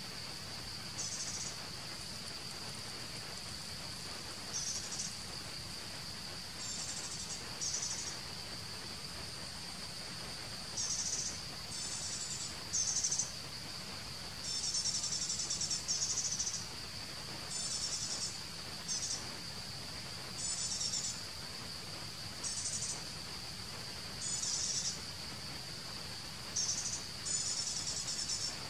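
Forest insects: a steady high-pitched drone, with short, higher buzzing trills breaking in every second or two.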